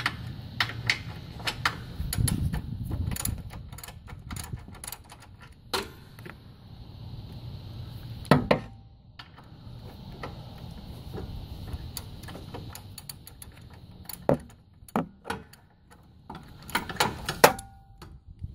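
A ratchet socket wrench with an extension clicking in short, irregular runs as it is swung back and forth to loosen a half-inch bolt, with sharp metal clinks and knocks between the runs.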